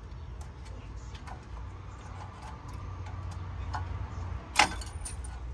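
Small metallic clicks and scrapes of parking brake shoe hardware being worked by hand inside a rear brake drum, as a hold-down clip is pushed in and turned to lock the shoe in place. One sharp metallic click about four and a half seconds in is the loudest sound.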